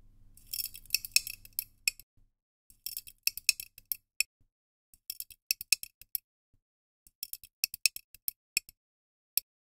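Field recording of ice cracking played back on a loop: clusters of sharp cracks and ticks, a group about every two seconds, with silence between them. It has been cut down to its transients by Beats warp mode with low transient preservation, so the ambient sound between the cracks is gone.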